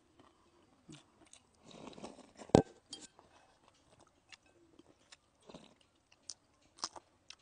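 Close-miked chewing and biting of food, with scattered small clicks and one sharp click about two and a half seconds in.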